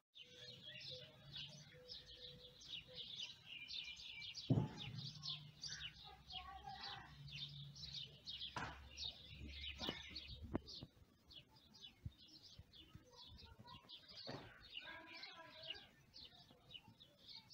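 Small birds chirping and twittering faintly in the background: many short, rapid chirps, with no other sound standing out.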